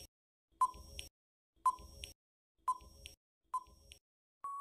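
Countdown timer sound effect: a short tick-beep about once a second, five in all, then a longer steady beep near the end as the time runs out.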